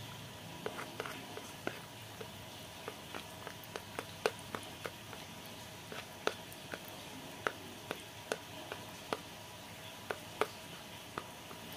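Sticky glutinous-rice-flour slime being squeezed and kneaded by hand in a plastic plate, giving small wet clicks and pops at irregular intervals, about two a second, over a steady hiss.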